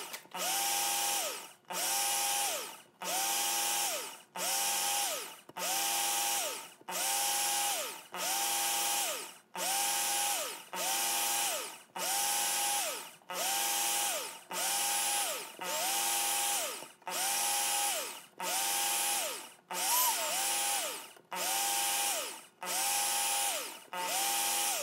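Work Sharp Ken Onion Edition electric belt knife sharpener, sharpening a blade on an extra-fine belt. The motor whirs in repeated short runs, about one every second and a half, its pitch rising as it spins up and dropping as it winds down each time.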